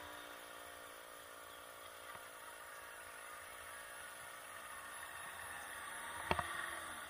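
A small engine running steadily at low level, growing slightly louder near the end. A single sharp click comes about six seconds in.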